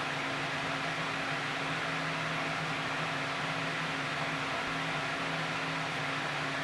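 Steady background machine hum over a constant hiss, with two low steady tones and no change throughout.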